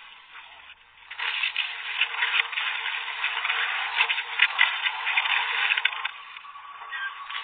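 Loud electrical crackling and sizzling, like lightning arcing close by, rising sharply about a second in and easing off about six seconds in. A thin steady whine is left near the end.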